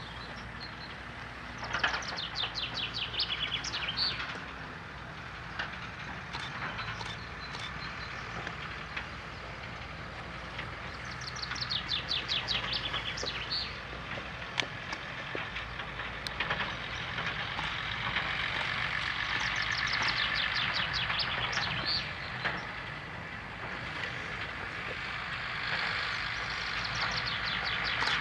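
Hyundai 170W-7A wheeled excavator's diesel engine running steadily with a low hum. Over it a songbird sings a rapid high trill four times, each phrase lasting a couple of seconds.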